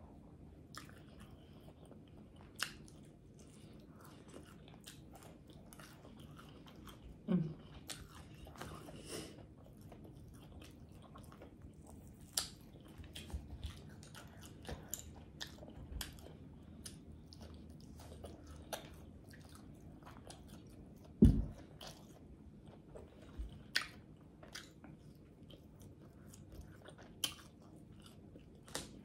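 Close-miked eating of fried pork chop: biting and chewing the fried coating, with wet mouth sounds and lip smacking as small scattered clicks. About two-thirds of the way through there is one louder low thump.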